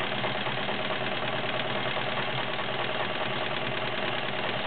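All-metal Kenmore 1757 sewing machine with a 1.2 amp motor, running steadily at speed while stitching a scallop pattern from a top hat decorative cam.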